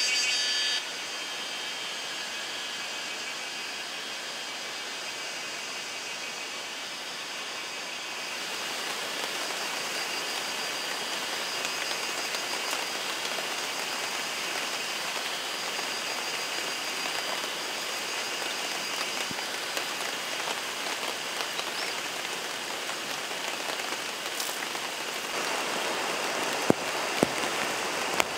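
Heavy rain falling steadily, a dense even hiss that grows a little louder about eight seconds in, with a few sharp ticks near the end.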